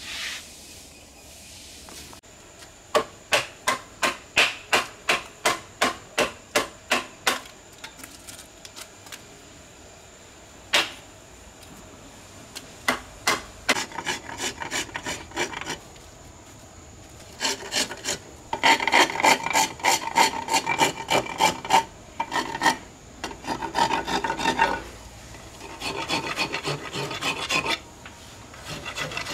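Hand file scraping along a curved piece of wood clamped in a bench vise. First come evenly spaced strokes about two a second, then faster, denser runs of filing broken by short pauses.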